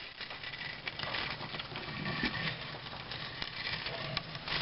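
14 gauge galvanized steel wire being wound onto a wooden dowel, a scratchy rustle with many small clicks.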